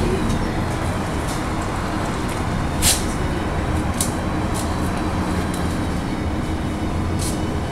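Inside a city bus on the move: the steady drone of the engine and road noise, with a few sharp clicks or rattles, the loudest about three seconds in.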